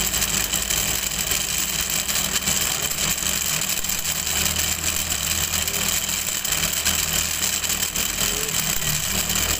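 Converted industrial electric motor of a homemade coil-winding machine running steadily, a high whir over a low hum, as it winds magnet wire onto an electric fan's stator coil.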